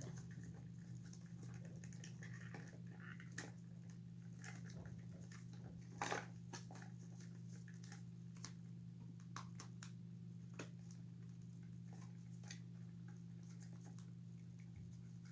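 Faint handling of plastic toy parts as a motor and hip mechanism are pushed into an animated figure's hollow leg: scattered small clicks and taps, a louder cluster about six seconds in, over a steady low hum.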